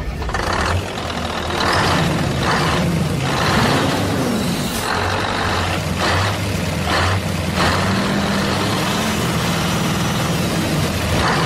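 Heavy truck engine running steadily, with short hissing bursts like air brakes every second or so.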